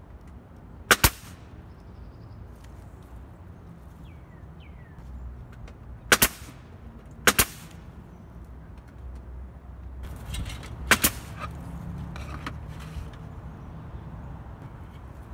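Pneumatic nail gun firing four times, a few seconds apart, each shot a sharp double crack as it drives a nail through a cedar shake into the wall.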